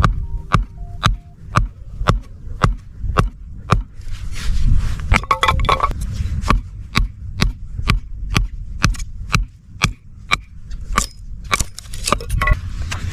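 A steady series of sharp knocks or crunches, about two a second, over a low rumble.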